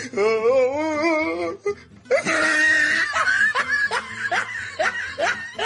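People laughing: one high, wavering voice laughing for the first second and a half, then several voices laughing together in short repeated bursts.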